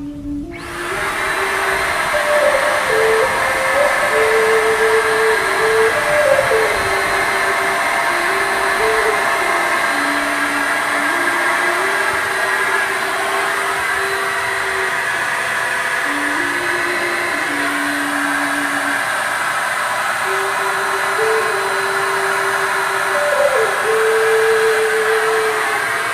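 Electric HVLP paint spray gun's motor starting about half a second in and then running steadily while spraying paint, a constant whooshing whine. A simple tune of held notes plays over it.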